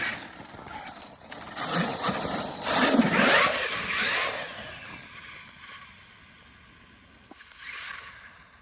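Traxxas X-Maxx 8S electric RC monster truck driving over bumpy ground: motor whine and tyre noise swell to a peak about three seconds in, then fade as the truck gets farther off, with a short swell again near the end.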